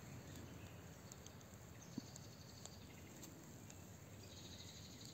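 Near silence: faint outdoor background hiss, with one small click about two seconds in.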